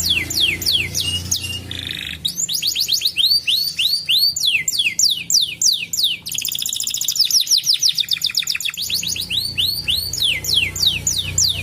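Domestic canary singing a fast, rolling song of rapidly repeated down-slurred notes, switching every second or two to a new trill, including a very fast buzzy run a little past the middle.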